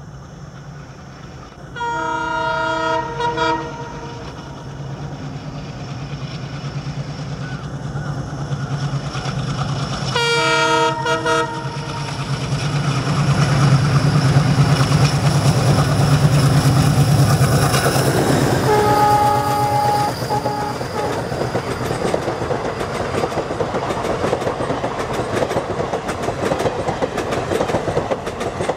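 WDM3D diesel locomotive approaching at speed and passing, sounding its horn in short blasts about two seconds in, again around ten seconds, and once more, lower-pitched, about nineteen seconds in. Its engine rumble builds to the loudest point as it goes by, then the passenger coaches run past with a steady clickety-clack of wheels over the rail joints.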